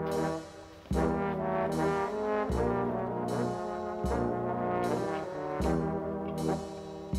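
Background music on brass instruments: slow, held chords, a new one about every second and a half.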